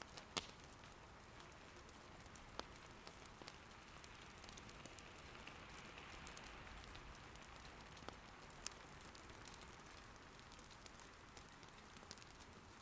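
Faint, soft, steady rain patter, with firewood burning in an irori hearth giving scattered sharp crackles and pops, the loudest about half a second in.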